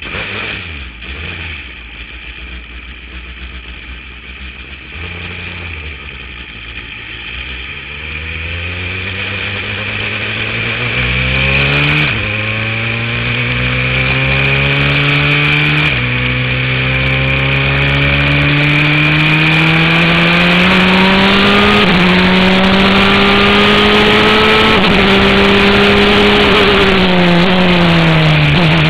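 Formula 3 race car engine heard from the cockpit, running low for the first several seconds, then accelerating hard with the pitch climbing and dropping at each of several upshifts, and falling near the end as the car slows. A steady high hiss runs beneath it.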